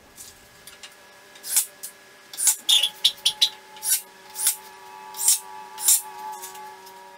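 A string of short rasping strokes from a hand tool working wood, irregularly spaced about half a second to a second apart, starting about a second and a half in, over a faint steady hum.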